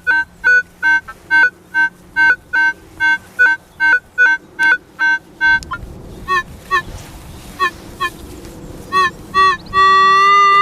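Minelab CTX 3030 metal detector giving a strong, repeating signal of short two-tone beeps, two or three a second, as the coil passes back and forth over a buried target. After about five seconds the beeps become scattered and shorter over a duller background noise, and near the end a single long steady tone sounds.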